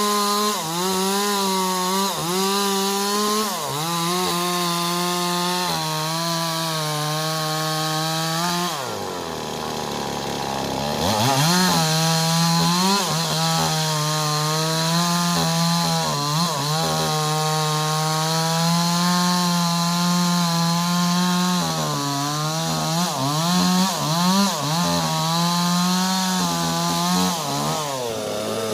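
Two-stroke chainsaw running at high revs, cutting sengon wood, its pitch dipping again and again as the chain bites. About nine seconds in it drops to idle, then revs back up about two seconds later and cuts on.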